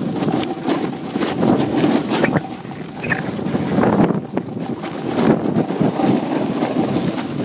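Wind buffeting the microphone over the scrape and hiss of snowboard edges carving packed snow at speed, the noise swelling and easing with the turns.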